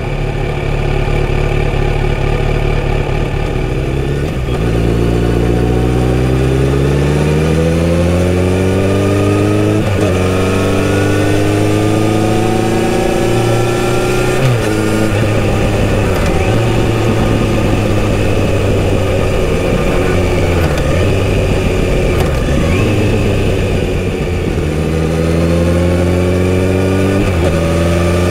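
Kawasaki Z900RS inline-four with a full-system exhaust, idling, then pulling away about four seconds in. Its pitch climbs through two upshifts, it holds a steady cruise, and near the end it accelerates again through another shift.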